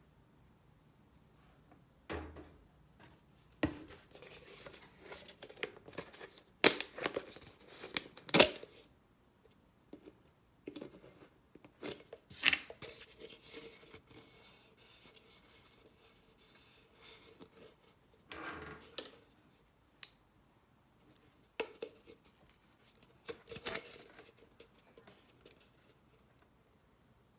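Plastic yogurt tub and soda cup being handled and set down on a table: scattered taps, knocks and scrapes of plastic, the loudest two sharp knocks about seven and eight and a half seconds in.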